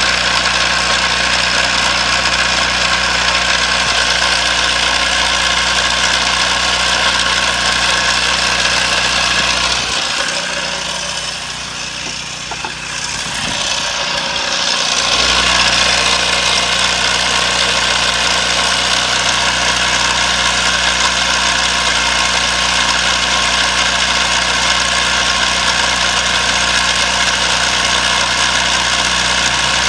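Small engine fuelled with propane through a GEET fuel processor, running steadily at about 3,600 rpm. The sound grows fainter and thinner for a few seconds about ten seconds in.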